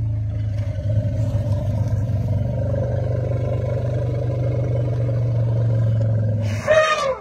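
A low, steady hum, then near the end a short, loud elephant call whose pitch bends up and down.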